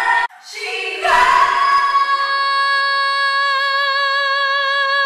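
A woman singing without accompaniment. After a short break early on, her voice rises into one long high note, held for about four seconds with a slight vibrato.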